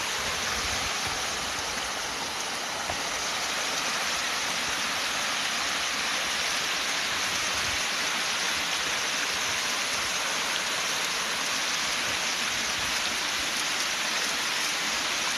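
Water rushing steadily over a small falls on a creek.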